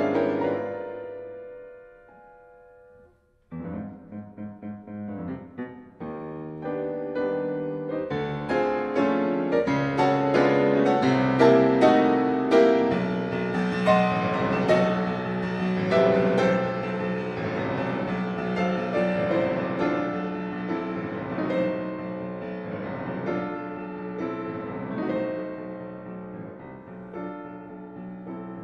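Background piano music: one piece fades out in the first seconds, a short gap follows, and a new piece of separate notes starts about three and a half seconds in and builds.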